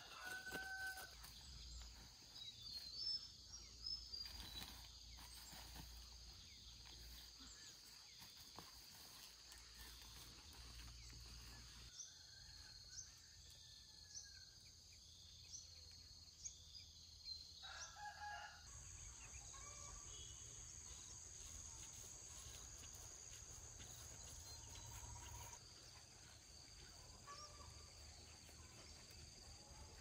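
Faint rural ambience: a rooster crowing now and then over a steady high insect drone and small bird chirps.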